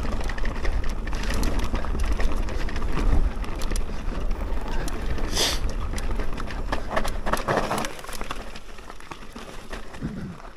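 Electric mountain bike descending a rough dirt track: tyres rolling over ground and stones, with many small knocks and rattles from the bike over the bumps and a low rumble. A short hiss about five seconds in, and the sound drops off near the end as the bike slows.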